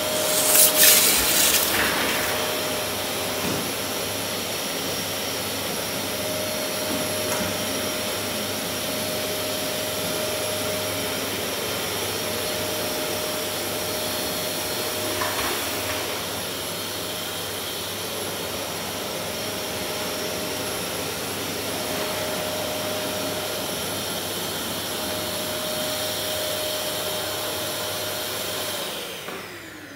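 Steady whirring fan noise with a faint hum, fading near the end. About a second in, a short, louder scrape of the metal pizza peel as the pizza is slid onto the oven's stone deck.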